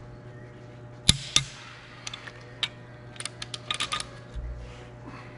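Hand tools working the head bolts of a Detroit Diesel Series 60 cylinder head: two sharp metallic knocks a little after a second in, then quick runs of ratchet clicks around three to four seconds in as the bolts are run down. A steady low hum runs underneath.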